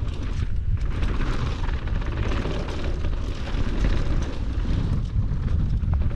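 Wind buffeting a helmet-mounted camera's microphone while a downhill mountain bike rolls fast over a dirt and gravel trail. Tyres crunch on loose gravel, with frequent small clicks and rattles from the bike.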